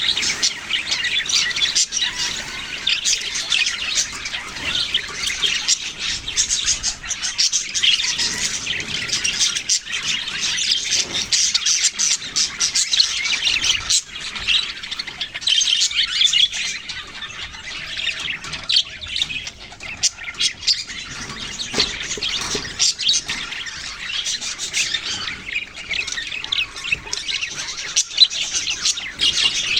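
Budgerigars (budgies) chirping, chattering and squawking nonstop, with many quick calls overlapping.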